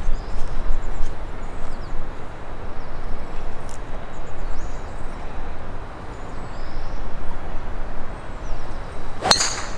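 Strong, gusty wind buffeting the microphone, with faint bird chirps. About nine seconds in, one sharp click of a golf club striking the ball.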